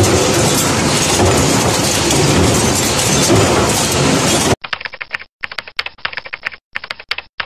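Cutlery cross rolling machine running with dense, steady mechanical noise and a fast, fine clatter. About two-thirds of the way in it cuts off abruptly, giving way to short runs of rapid keyboard-typing clicks, a sound effect for text being typed on screen.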